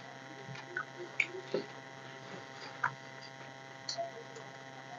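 Steady electrical hum with a few faint scattered clicks and smacks of eating: fingers mixing rice on steel plates and mouths chewing.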